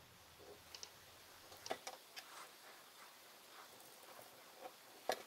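Faint, scattered small clicks and ticks as a steel thermal tube is turned by hand into a 3D-printer hotend heater block, the loudest one near the end.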